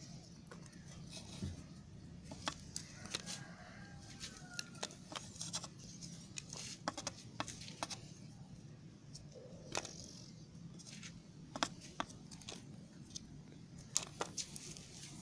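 Bar soap being cut and crumbled, giving a run of irregular, crisp crackles and snaps over a low steady hum.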